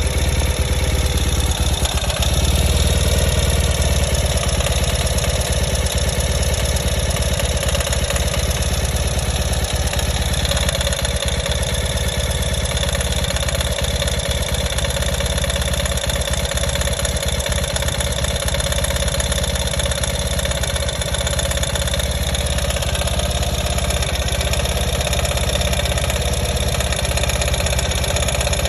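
2020 Ural motorcycle's air-cooled boxer-twin engine idling steadily, heard through a mechanic's stethoscope held to the engine, with many short clicks from inside it.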